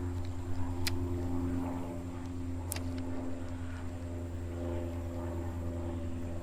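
A steady low mechanical hum like a distant engine, with a couple of short sharp clicks, one about a second in and one near three seconds in.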